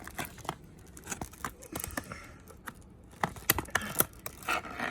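Hands working at a hard-to-open cardboard box: scattered sharp clicks and scratches of the packaging being picked at and pried, busier in the second half.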